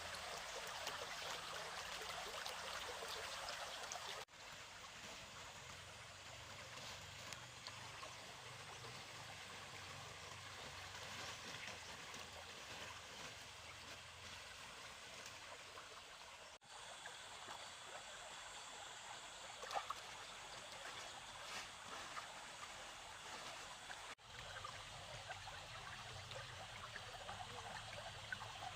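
Shallow water flowing and trickling, a steady rushing sound that breaks off sharply three times.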